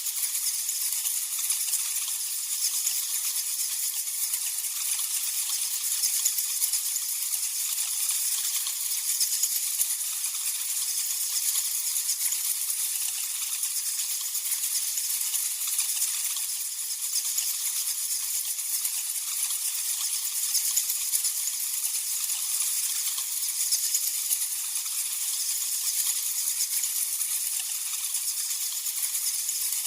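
A colony of bats chittering: a dense, continuous high-pitched chatter of clicks and squeaks, with nothing low in it.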